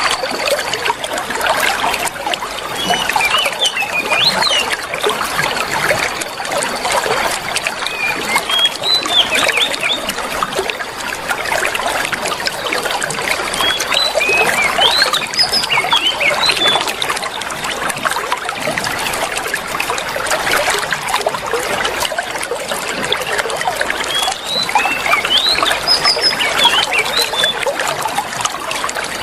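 Oriental magpie-robin (kacer) giving clusters of short, rising, squeaky chirps every few seconds, over the steady trickle of running water, as used in bird-therapy recordings for a kacer that has gone quiet.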